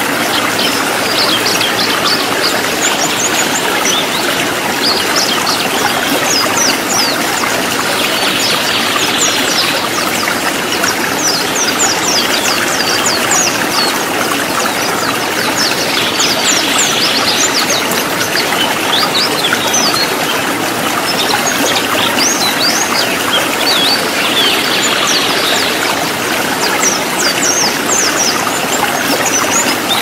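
Steady rush of a rocky stream, with white-eyes (pleci) singing a fast, high twittering song over it in repeated quick bouts.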